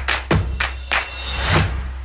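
Electronic intro music for a TV news segment: a run of sharp percussive hits over a steady deep bass.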